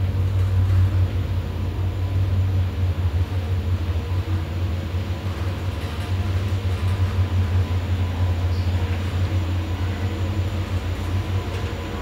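Ride noise inside a large OTIS 2000 freight elevator car, modernized by OTIS, built to carry shopping carts: a steady low hum as the car travels in the shaft.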